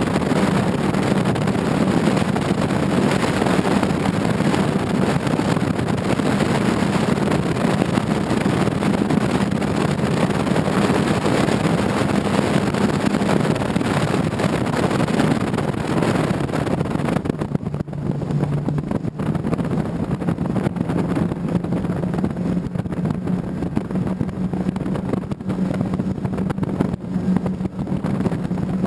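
Racing powerboat's engine running at speed, heard from on board over the rush of wind and water. About two-thirds of the way through, the rushing eases and the engine note dips briefly before settling again, as the boat backs off the throttle.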